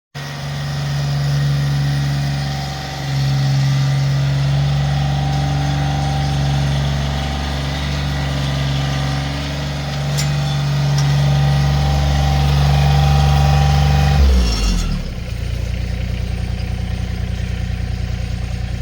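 Massey Ferguson GC2400 subcompact tractor's diesel engine running steadily at raised speed, then dropping back about fourteen seconds in to a lower idle with an even pulsing beat.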